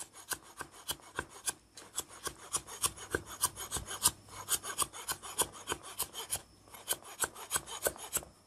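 Cleaver slicing lime leaves into fine shreds on a plastic cutting board: quick, even knife taps about five a second, with two short pauses.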